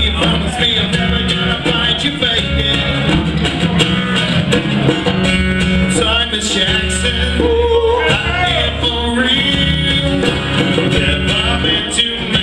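Live band playing a country-flavoured rock song: guitars and bass over a steady beat, with notes bending in pitch midway through.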